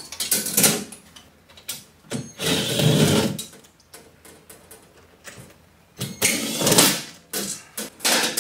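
Cordless drill/driver running in three short spells of about a second each, backing out the screws that hold the breaker panel's metal cover.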